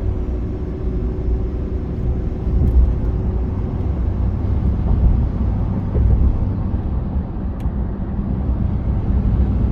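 3.0 Duramax inline-six turbodiesel with an S&B cold air intake pulling under load at about 50 mph, a steady low rumble of engine and road noise.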